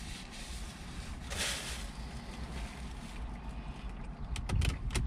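Steady low rumble in a parked car's cabin, with a brief rustle about a second and a half in and a few sharp crinkling clicks near the end as the burger and its wrapping are handled.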